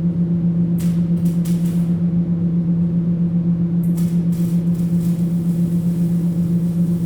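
Electric welding: the arc gives a steady, loud, low electrical buzz. Bursts of high crackling come about a second in and again near four seconds, after which a sizzling hiss carries on under the buzz.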